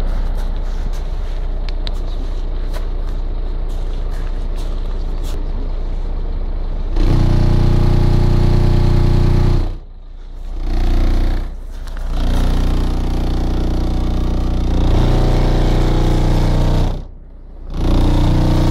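Car-audio subwoofer in the boot of a hatchback playing deep, bass-heavy music, heard from outside the car. The bass turns much louder about seven seconds in and cuts out briefly three times.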